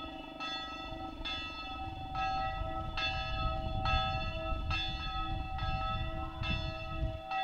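A large swinging bell ringing in a steady rhythm, a stroke a little more often than once a second, each stroke ringing on. There is a low rumble underneath.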